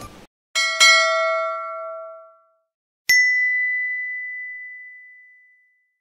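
Bell-like chime sound effects: two struck chimes close together near the start, ringing out for about two seconds, then a single clear high ding about three seconds in that rings and fades slowly.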